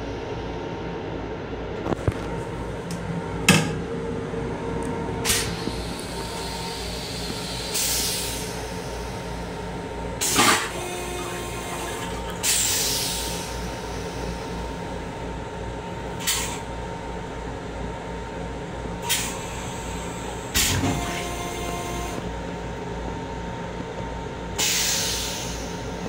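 Steady electrical hum of an M7 electric railcar heard inside its small restroom, broken by occasional sharp knocks and a few short hissing swooshes that fade away.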